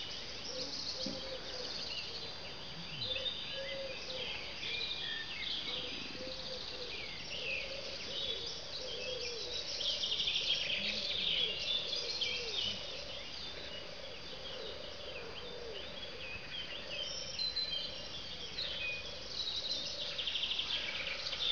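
Outdoor ambience of many birds chirping and twittering continuously, over a thin steady high insect-like tone.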